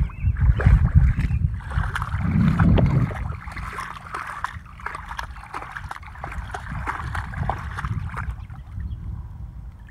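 Dog wading in shallow water, its legs splashing and sloshing the water in irregular bursts. A heavy low rumble dominates the first three seconds.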